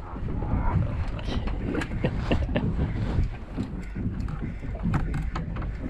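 Wind buffeting the microphone aboard a boat on open water, a constant low rumble, with scattered short knocks and clatter throughout.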